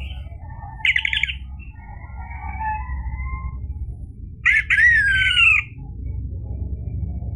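Orange-headed thrush singing: a short fast trill about a second in, softer warbling phrases, then a loud phrase of falling whistled notes about four and a half seconds in. A steady low hum runs underneath.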